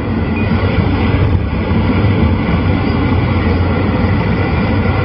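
A car driving at speed, heard from inside the cabin: steady road and engine rumble with no break.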